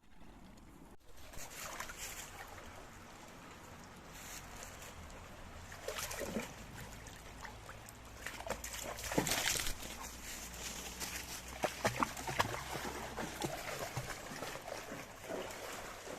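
Fox red Labrador splashing and wading through water: irregular sloshing and splashes, loudest about nine and twelve seconds in.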